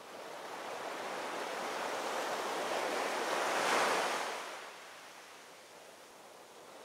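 Ocean surf: waves washing on a beach, swelling to a breaking wave a little under four seconds in, then drawing back and fading.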